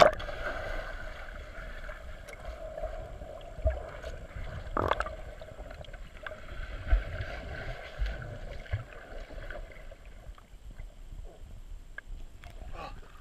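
Muffled water sound from a camera inside its underwater housing, submerged in a swimming pool: a splash right at the start as it goes under, then a steady rush of churning water and bubbles with a sharp splash about five seconds in and a few dull low thumps.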